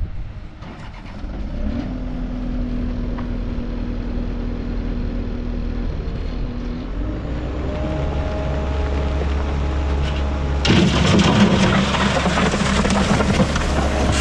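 Case SV185 skid steer's diesel engine running, its sound coming up about a second and a half in and getting louder and rougher over the last few seconds.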